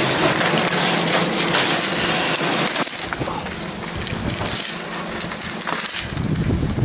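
Skis scraping and crunching over packed snow while being towed up a button drag lift. A thin high squeal comes and goes from about halfway through.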